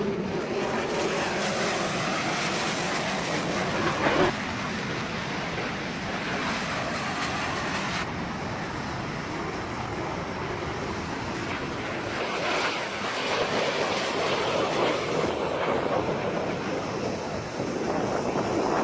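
Jet fighter flying past, its engines a loud, steady rushing noise, with a brief louder burst about four seconds in.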